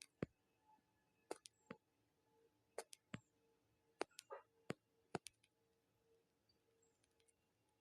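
Near silence, with about a dozen faint, sharp clicks at irregular moments through the first five and a half seconds, over a faint steady hum.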